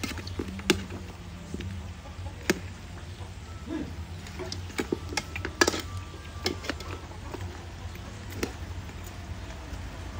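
Metal ladle stirring pieces of braised pork leg in a large aluminium cooking pot, with scattered clicks and scrapes of metal on metal over a steady low hum.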